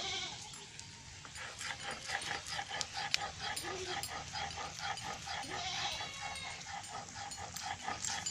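An animal calling: a quick run of short repeated calls, about four a second, with a longer high whining call about six seconds in.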